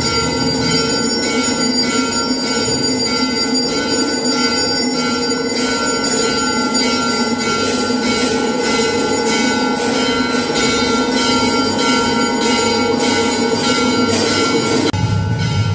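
Temple bells and a hand-struck brass gong ringing on and on during a Hindu aarti, fast repeated strikes over a dense metallic ringing. Near the end the ringing drops away and a deeper, lower sound takes over.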